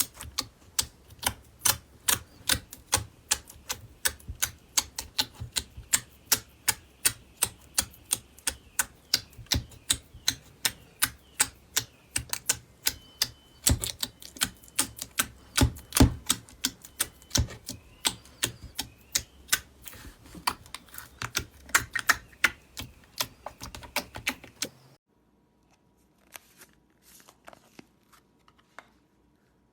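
Slime being pressed and poked by hand, giving a steady run of sharp clicking pops, about two or three a second. About 25 seconds in it cuts to a much quieter clip with only a few faint clicks.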